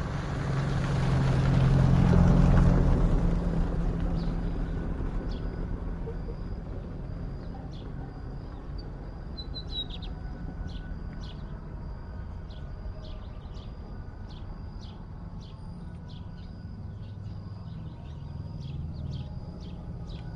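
A bird chirping in short, high notes repeated about every half second. Under the first few seconds a low rumble swells and fades away.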